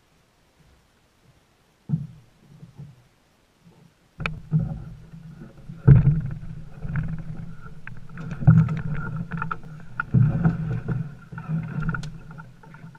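Knocks and heavy thumps of a canoe and gear being handled and heaved up onto a person's shoulders, over a low rumbling handling noise close to the microphone. There is a single knock about two seconds in, and the repeated thumps begin about four seconds in.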